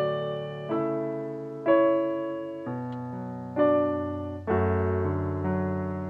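Slow piano music: chords struck about once a second, each left to ring and fade before the next.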